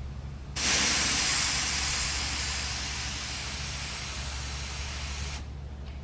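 Compressed-air paint spray gun triggered in one long spray of hiss, about five seconds, starting suddenly, easing off slightly and cutting off when the trigger is released.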